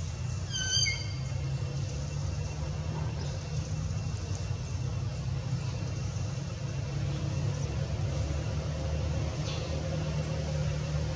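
Steady low engine-like rumble, like traffic or a running vehicle. A brief high squeak comes about a second in.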